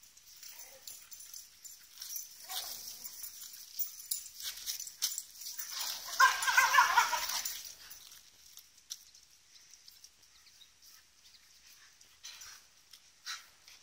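A dog vocalising during play: short, faint cries, then one drawn-out pitched cry about six seconds in, the loudest sound.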